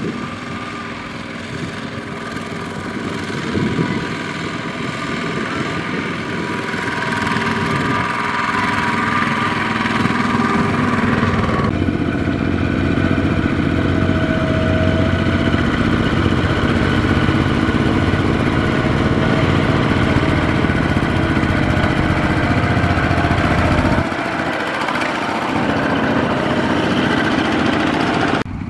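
Single-cylinder diesel engines of two-wheel walking tractors running steadily while pulling loaded trailers, with the engine sound changing abruptly about 12 and 24 seconds in.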